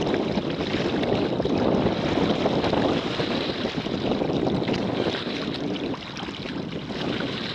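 Wind buffeting the microphone over water rushing along the hull of a sailing kayak, a steady noisy wash that eases slightly near the end.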